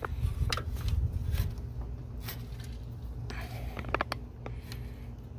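Scattered light clicks and scrapes of hands and tools working the slackened drive belt on a 1991 Mitsubishi Montero's alternator pulley, with a quick cluster of clicks about four seconds in. A low rumble sits under the first second and a half.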